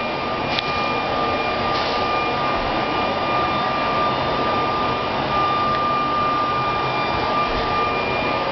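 A steady mechanical drone with a constant thin high whine running through it.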